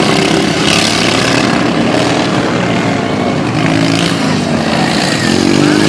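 Several racing lawnmower engines running together, one pitch sliding down in the middle as a machine passes.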